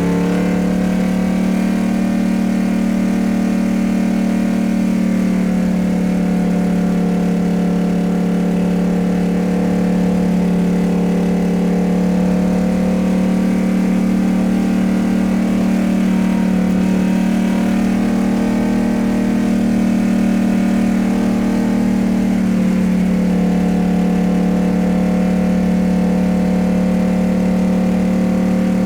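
Motor vehicle engine running at a steady, held speed, its pitch staying level throughout.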